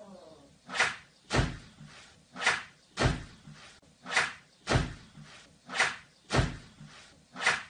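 Heavy knocks or bangs in a steady rhythm: pairs of thumps about half a second apart, repeating about every second and a half, nine in all.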